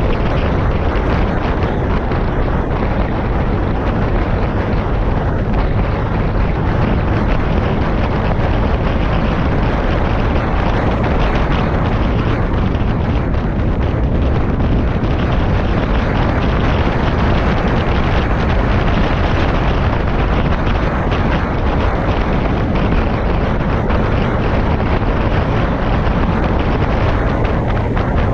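Steady heavy wind rush and rumble on the microphone while riding a Honda PCX 125 scooter at speed, with the scooter's running and road noise blended underneath.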